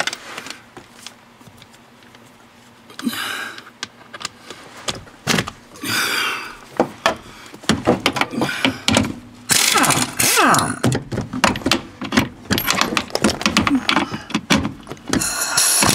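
Socket and wrench work on bolts: metal clinks, clatters and knocks, with a few short rasping bursts. A louder, steady tool noise starts near the end.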